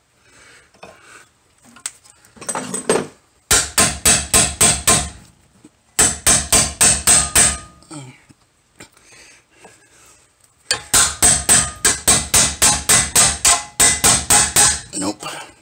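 Hammer blows on a steel ball joint pickle fork wedged into a 1985 Corvette's front ball joint. They come in three rapid volleys of about four blows a second, the last and longest near the end. The ball joint is stuck and does not pop loose.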